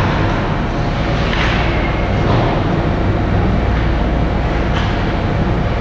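Ice hockey arena ambience during play: a steady low rumble with a few faint, short, sharper sounds from the rink.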